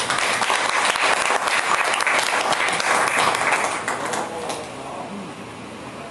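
Audience applauding in a room, starting abruptly and dying away about four seconds in.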